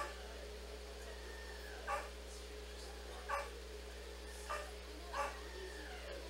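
A small dog barking: five short, sharp barks at irregular gaps of about a second.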